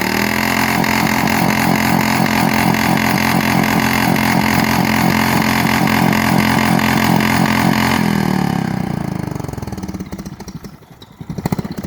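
Engine held wide open against its rev limiter: a loud, steady high-revving drone broken by rapid, regular cuts as the limiter bounces, so it cannot over-rev. About eight seconds in the revs fall away toward idle.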